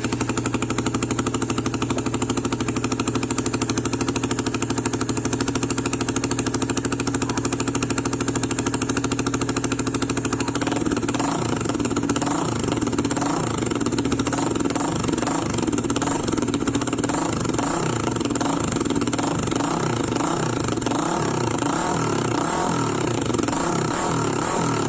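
Honda RS150fi's single-cylinder engine running through a Daeng aftermarket muffler with its silencer fitted, just after starting. It runs steadily at first, then its note turns rougher and less even from about halfway through.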